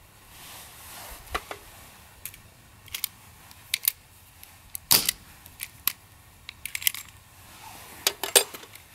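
Scattered sharp metallic clicks and clacks of a revolver being handled and loaded with a single cartridge, then fitted into a wooden firing stand. The sharpest click comes about halfway through, with another cluster near the end.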